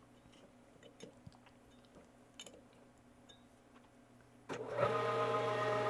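A few faint clicks, then about four and a half seconds in the Leblond metal lathe switches on and runs steadily, spinning the 3-jaw chuck, a hum with several even steady tones.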